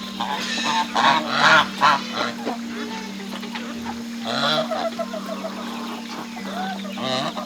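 Domestic geese honking: a burst of calls in the first two seconds, another around the middle and one near the end, over a steady low hum.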